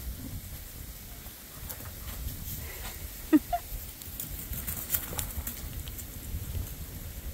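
Wind rumbling on the microphone, with scattered light taps, and one short high-pitched yelp from a greyhound a little over three seconds in, followed at once by a second brief squeak.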